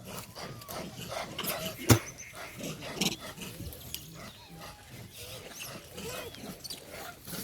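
A group of monkeys calling, with many short squeaks and chirps overlapping, over clicks and rustling; a sharp knock about two seconds in.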